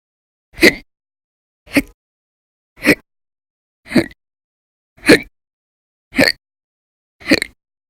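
A woman's violent, very loud hiccups, seven in a row, evenly spaced about a second apart with silence between. This is part of a persistent hiccup bout that goes on for hours.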